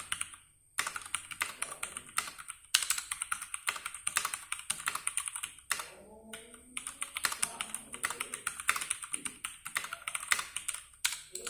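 Fast continuous typing on a Ducky One 2 Skyline mechanical keyboard with Cherry MX Brown tactile switches, a rapid stream of key clicks and clacks. There are two brief pauses, about half a second in and about six seconds in.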